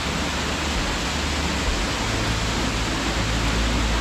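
Waterfall on a mountain beck pouring into a rocky gorge: a steady, loud rush of falling water with a deep rumble underneath.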